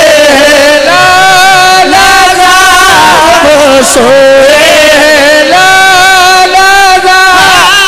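A man singing a devotional Urdu naat into a microphone, in long drawn-out held notes that bend and waver as he ornaments them.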